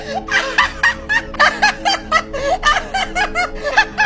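Rapid, high-pitched laughter in quick bursts of about five a second, over background music with steady held notes.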